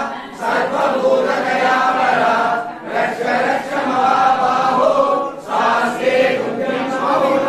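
Voices chanting a Tamil Ayyappa devotional chant together, in sustained phrases with short breaths between them about a third of a second in, near three seconds, and at about five and a half seconds.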